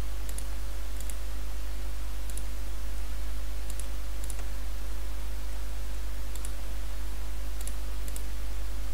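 Faint, scattered clicks of computer input, about eight spread over nine seconds, over a steady low hum.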